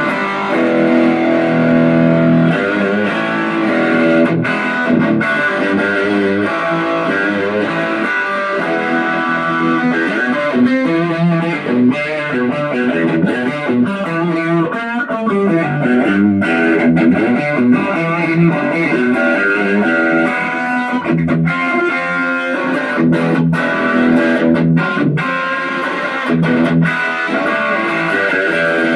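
Electric guitar played continuously, chords and single notes sustaining and changing, through a homemade 1-watt MOSFET light-bulb amplifier that drives a speaker directly, fed by a preamp with effects.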